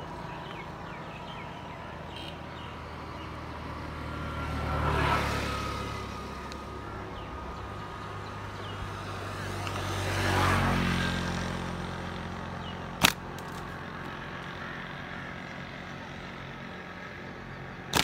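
Two vehicles passing at a distance, each swelling and then fading, about five and ten seconds in, over a steady outdoor background. A single sharp click about 13 seconds in.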